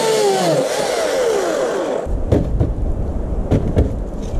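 Electric chainsaw whining as it cuts into a log, its pitch dropping again and again as the chain bites the wood. About two seconds in the saw stops suddenly, leaving a low rumble and a few sharp knocks and clatters.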